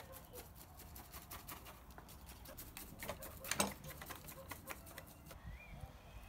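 Faint handling noise from hands working in gritty bonsai soil around root grafts: a run of small clicks and scratches, with one louder click about three and a half seconds in, easing off after about five seconds.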